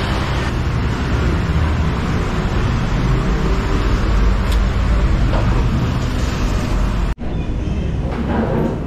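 Steady low rumble of a motor vehicle under way, engine and road noise. It breaks off abruptly about seven seconds in, and a different background noise follows.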